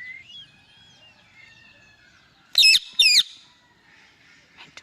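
Indian ringneck parrot giving two loud, harsh screeches in quick succession about two and a half seconds in, after a run of soft chirps and whistles.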